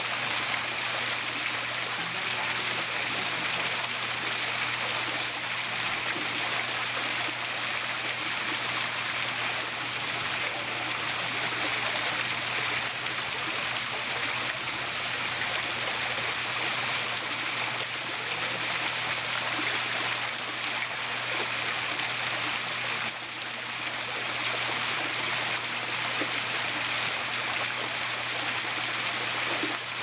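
Small rock-garden waterfall splashing steadily into a koi pond, a constant, even sound of falling water.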